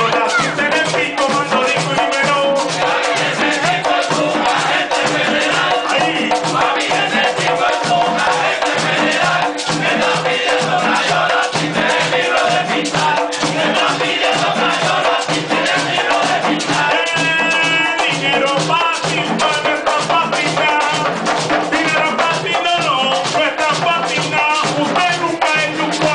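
Live Puerto Rican plena: several panderos (hand-held frame drums) beating a steady, driving rhythm while a lead singer and chorus sing over them, with a long held sung note a little past halfway.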